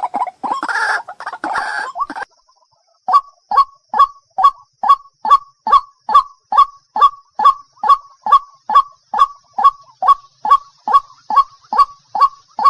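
Waterhen calling: a quick run of harsh clucking notes, then, after a short break, a steady string of short, sharp, downward-sliding calls at about two a second.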